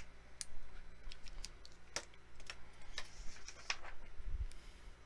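Trading cards and hard plastic card holders being handled and set down on a table: irregular light clicks and taps, over a faint steady low hum.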